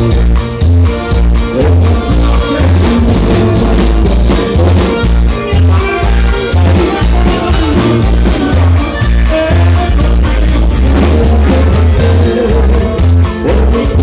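Live band dance music played loud, with a steady bass beat about twice a second under guitar and other instruments.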